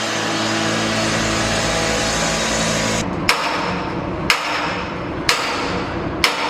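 A steady mechanical hum, then four sharp strikes evenly spaced about a second apart, each ringing briefly.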